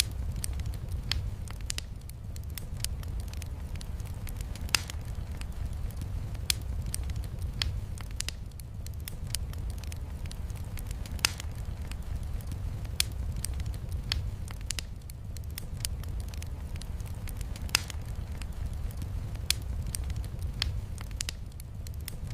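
Wood fire crackling in a fireplace: frequent irregular small snaps, with a few louder pops scattered through, over a steady low rumble and the soft hiss of rain.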